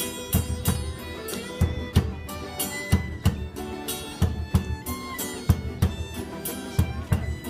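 Instrumental music with a steady drum beat under held pitched notes.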